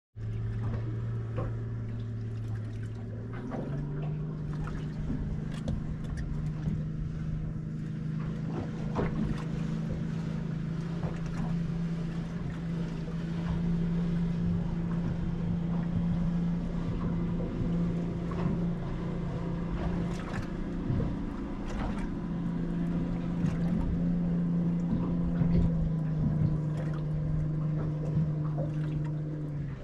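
Outboard boat engine idling steadily, its pitch stepping up a little about three and a half seconds in, with scattered small knocks over it.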